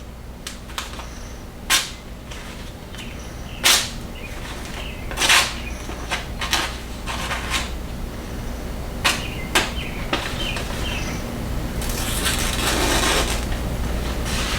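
Thin magazine paper being handled and sliced with a freshly sharpened Leatherman blade: a string of short, sharp paper strokes, then a longer stretch of rustling and slicing near the end.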